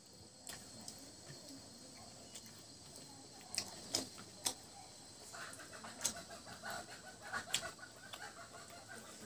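Eating sounds: chewing and sharp lip smacks, several in the middle, while fingers gather rice and mutton curry on a banana leaf. Hens cluck in the background.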